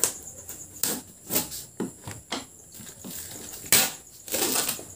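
Packing tape on a cardboard shipping box being cut with scissors and pulled away: a string of short, sharp snaps and rips, with a longer stretch of tape and cardboard rustling near the end.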